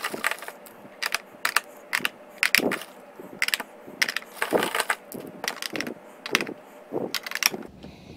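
AA NiMH batteries being pushed one after another into the spring-contact bays of a 16-bay plastic battery charger: an irregular run of sharp clicks and clacks, stopping abruptly near the end.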